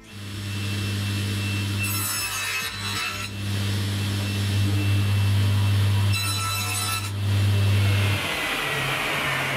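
Table saw motor starting up and running with a steady hum, its blade cutting through a small piece of wood twice, about two seconds in and again around six seconds. Near the end the saw is switched off and its whine falls away as the blade spins down.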